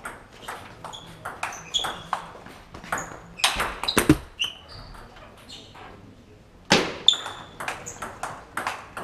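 Table tennis rally: the ball clicking off the bats and the table in quick succession, many of the hits with a short high ping. The hits pause for about a second just past halfway, then start again.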